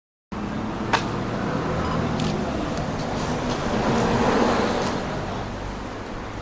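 Road traffic: a motor vehicle engine running, growing louder about four seconds in and then fading, with a sharp click about a second in.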